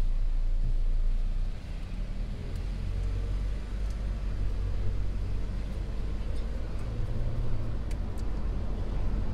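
Low, steady car engine and road rumble heard from inside a moving car, dipping slightly a second and a half in.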